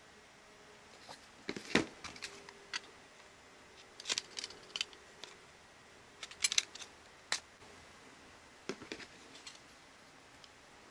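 Light clicks and clacks of small hard parts being handled, coming in four short clusters with quiet gaps between.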